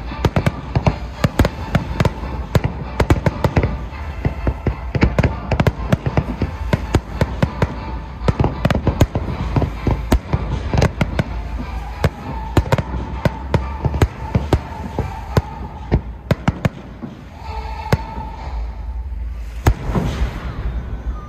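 Aerial fireworks display bursting in a rapid, dense volley of bangs and crackles, thinning out to scattered bursts for the last few seconds.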